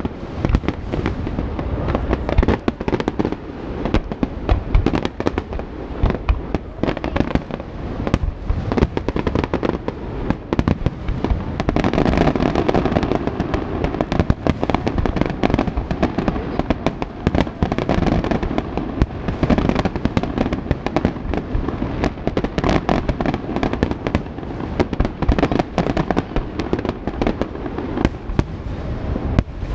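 Fireworks display going off in a dense, continuous barrage of sharp bangs and crackles, many per second, with heavier booming shell bursts swelling near the middle.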